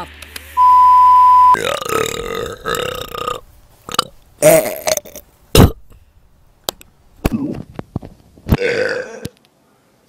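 A string of loud human burps: one long, croaking burp of about two seconds, then shorter burps near the middle and the end, with sharp clicks between them. Before the first burp, about half a second in, a steady high beep tone sounds for about a second.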